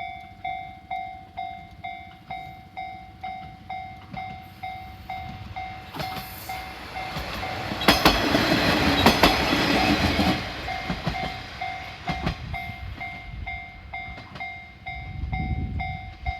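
Japanese level-crossing warning bell sounding steadily at about two strikes a second while a diesel railcar passes over the crossing. The train's rush is loudest from about 8 to 10 s, with wheels clicking over the rail joints. The bell stops near the end.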